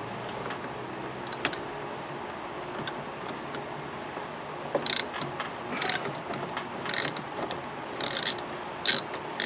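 Hand ratchet clicking as it backs out a screw on the wiper motor's pulse-board cover. A few single clicks come first, then from about five seconds in short bursts of ratcheting about once a second.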